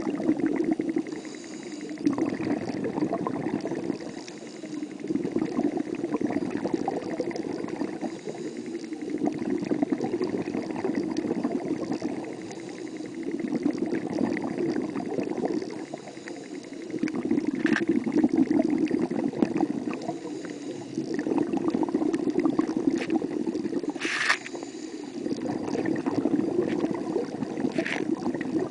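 Muffled underwater noise picked up by a submerged camera: a bubbling, churning wash of water that swells and eases every four seconds or so, with a few sharp clicks in the second half.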